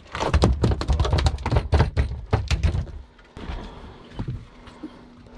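A freshly landed fish thrashing against the boat's fiberglass deck and fish hatch: a rapid, irregular run of slaps and thuds for about three seconds, then only a few scattered knocks.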